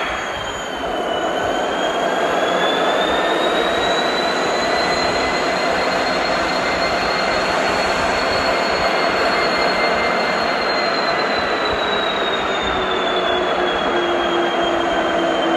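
Freight train rolling past, the steady noise of its cars overlaid with long wheel squeals that hold for many seconds and drift slowly up and down in pitch.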